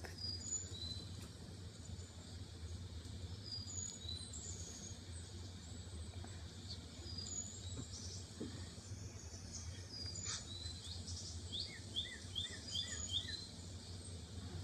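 Birds chirping in short high calls, with a quick run of about six falling notes near the end, over a steady low hum.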